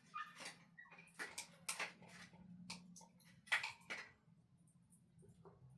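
Faint, irregular clicks and small taps, about eight of them spread unevenly, over a low steady hum.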